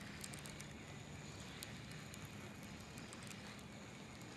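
Faint steady outdoor background: a low hum with light wind noise and scattered faint high ticks.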